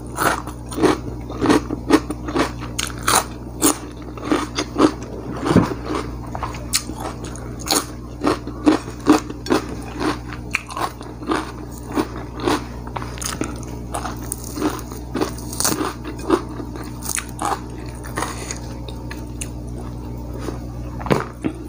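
Close-miked chewing of crunchy food, fried duck with raw cabbage and cucumber, a sharp crunch about twice a second that thins out after about thirteen seconds.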